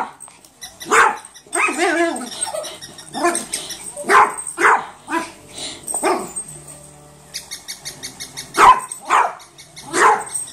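Yorkshire terrier barking in a run of short, sharp barks, with a pause of about two seconds partway through.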